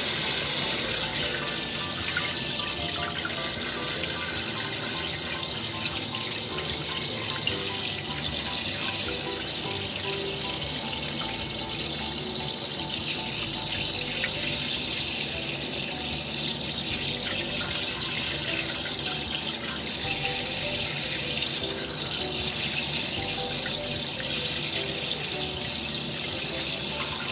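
Kitchen faucet running in a steady spray into the sink while hands rinse something under the stream.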